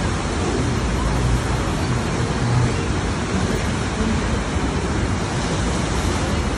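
Steady rush of water pouring up the slope of a sheet-wave surf simulator.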